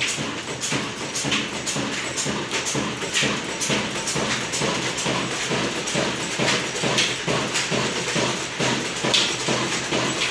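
Old stationary diesel engine with a large flywheel running steadily: a regular rhythm of sharp knocks over a low steady drone.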